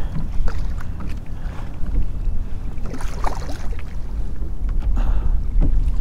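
Wind rumbling on the microphone, with water lapping and splashing around a kayak as a hooked redfish thrashes at the surface close by.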